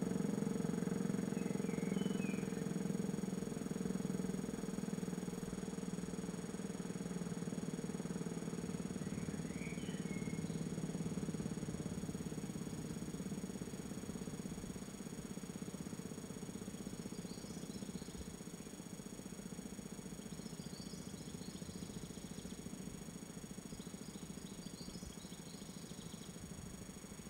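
Siemens FmSi 39 low-tone electric siren sounding a deep, steady two-note tone that slowly fades away as the siren winds down. A few short bird chirps and, later, faint high chirping are heard over it.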